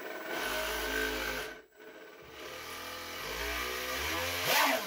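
Milwaukee drill motor, gearbox removed and run straight from the armature, spinning a 3D-printed jet-pump impeller with its intake in water. There is a short high-speed run that stops after about a second and a half, then a longer run that wavers in pitch, with a loud rushing burst near the end. It is a test of whether the pump primes itself.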